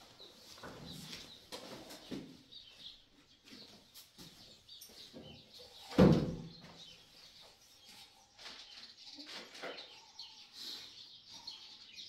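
Small birds chirping on and off, with scattered soft knocks and scrapes of wall work. A single loud knock about halfway through.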